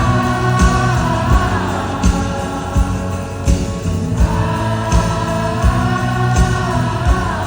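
Live rock band playing with a steady drum beat, with many voices singing the long held melody notes together like a choir: an arena crowd singing along.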